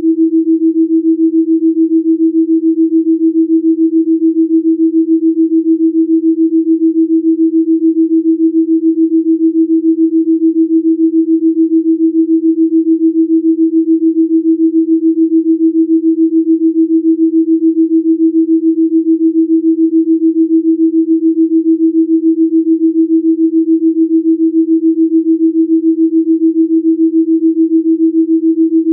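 An electronically generated pure sine tone, a Rife-frequency tone for a delta binaural track. It holds one unchanging low-mid pitch, with a quick, even pulsing in loudness.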